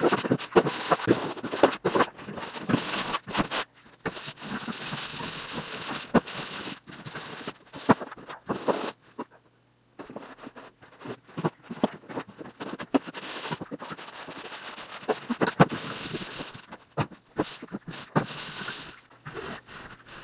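Drywall pole sander rasping back and forth over dried joint compound in quick, uneven strokes. The rasping breaks off completely for about a second near the middle.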